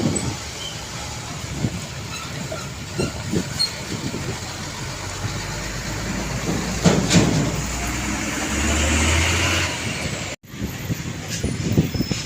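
Road traffic with heavy trucks passing close by. A big truck engine's low rumble builds from about five seconds in, with a loud surge of passing noise around seven seconds. The sound breaks off for an instant about ten seconds in, then the traffic noise goes on.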